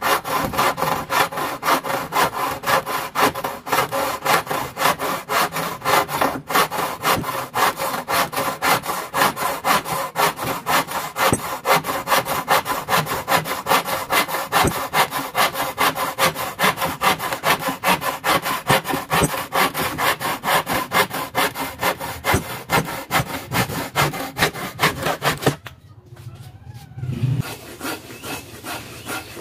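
Hand frame saw cutting through a wooden board in quick, even back-and-forth strokes. The sawing stops abruptly near the end, and quieter scraping and rubbing follows.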